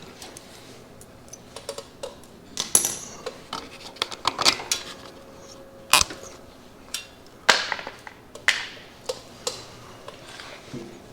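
Metal tools and parts clanking and clinking during hands-on work on a small go-kart engine: irregular sharp knocks, a few with a brief metallic ring.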